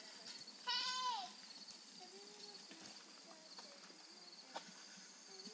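A toddler's short, high-pitched squeal, about a second in, dipping in pitch at its end, followed later by a single sharp click.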